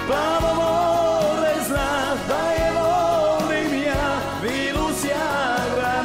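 Music: a Croatian pop song, a singing voice holding long wavering notes over a steady drum beat.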